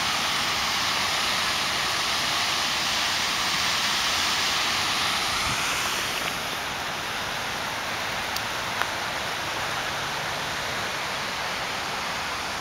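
Steady rushing hiss of Buckingham Fountain's spraying water, easing slightly about halfway through, with a couple of short clicks a little later.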